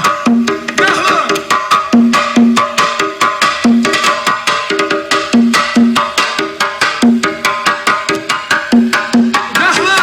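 Loud music with a fast, repeating percussive beat and a melody, played through a Chevrolet Celta's car sound system.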